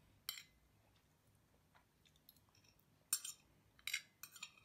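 Metal spoon and fork clinking and scraping on a ceramic plate of rice: one sharp clink just after the start, then a quick cluster of clinks about three to four seconds in.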